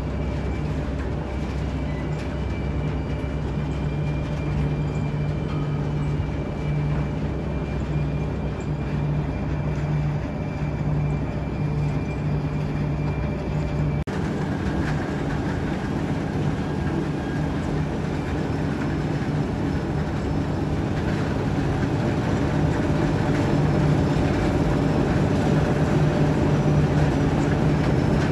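Steady heavy mechanical rumble with a constant low hum and faint steady whining tones above it. The sound changes abruptly about halfway through, as at a cut, then runs on and grows slightly louder toward the end.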